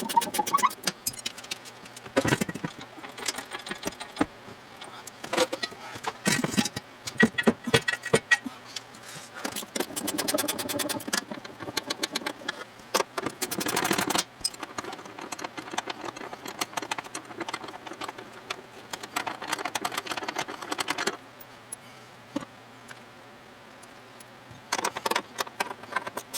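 Hand tools working on the door's hinge bolts: runs of rapid metallic ratchet-like clicking with irregular clanks and knocks of metal on metal, quieter for a few seconds near the end.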